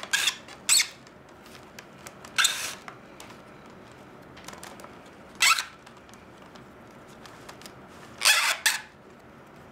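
Flat reed lashing strand sliding against the basket's reed rims as it is pulled through for the next stitch, in five short strokes, the last one longer, near the end.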